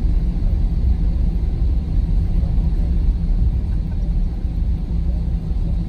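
Steady low rumble heard inside the cabin of an Airbus A320 rolling along the ground, the engines running and the airframe vibrating evenly.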